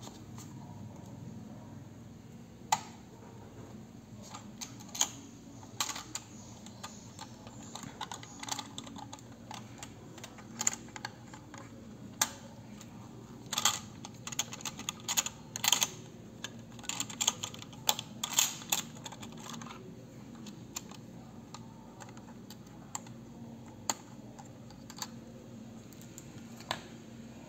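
Irregular small clicks and taps of a CPU socket being handled on an X99 motherboard: the LGA 2011-3 socket's metal retention levers and load plate are unlatched and lifted and its plastic cover comes off. A dense run of quick clicks falls in the middle, with scattered single clicks before and after.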